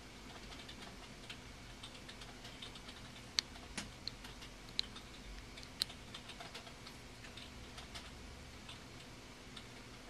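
Faint, scattered small clicks and taps of hard plastic parts being handled as a 10mm LED's leads are pressed into a white plastic panel-mount socket. A few sharper clicks stand out in the middle.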